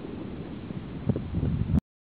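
Wind buffeting the camera microphone at a riverbank, a low rumbling noise that swells in gusts about a second in and cuts off suddenly near the end.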